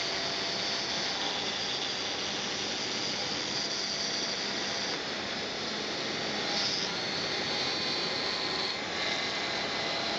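Desktop CNC milling machine running, with a steady spindle whine and cutting noise. The high tones shift in pitch a few times as the cutter works.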